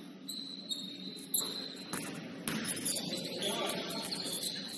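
Basketball shoes squeaking on the court: several short, high squeaks, mixed with a few sharp knocks of the ball bouncing and a low murmur of the gym.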